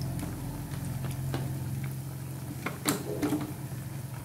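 Oil bubbling and sizzling around battered potato-slice pakoras deep-frying in an iron kadai, with a few sharp crackles and pops, the loudest about three seconds in, over a steady low hum.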